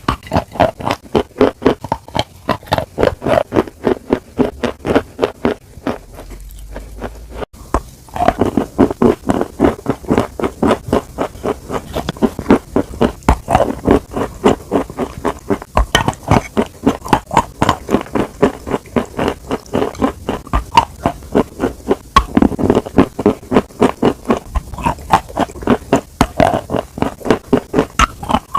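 Close-miked chewing of food: quick, regular chewing strokes, about three a second, with a short break about six seconds in before the chewing resumes.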